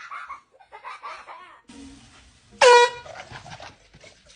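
An air horn gives one short, loud, blaring blast about two and a half seconds in.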